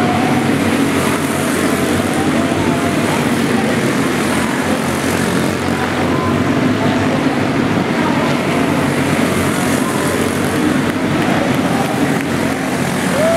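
Several racing go-kart engines running at speed together, a loud steady drone that continues throughout.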